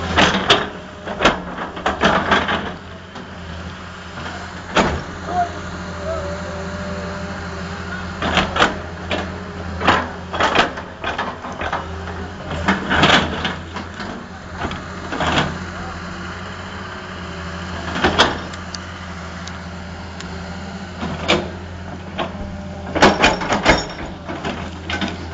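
A construction machine's engine running steadily, with irregular sharp knocks and clanks over it.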